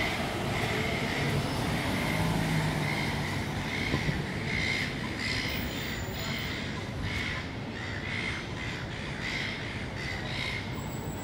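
City street traffic at night: a steady hum of cars and tyres on the road, with a vehicle's engine passing about two seconds in. A short high chirp repeats on and off over the traffic, and some sharp ticks come through in the second half.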